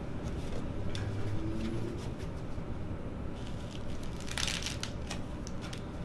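Handling of a chiropractic Y-strap as it is fitted around the head: a few small clicks and rustles of the nylon strap, then a short loud crackling rip about four and a half seconds in.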